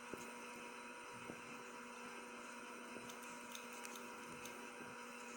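Faint steady electrical hum with hiss, and a few faint clicks.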